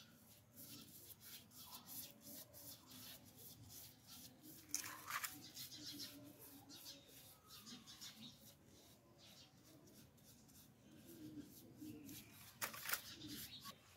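Paintbrush bristles brushing paint onto a flower pot: faint scratchy strokes, a few a second, with two louder scrapes about five seconds in and near the end.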